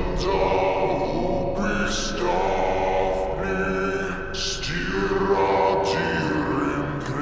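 Slowed-down, reverb-heavy male chant-singing in Old Norse, with layered choir-like voices holding long notes.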